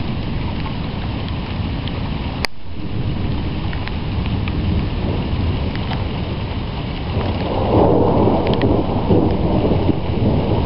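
Low rumbling thunder from an electrical storm, continuous, swelling louder about eight seconds in. A single sharp click cuts through about two and a half seconds in.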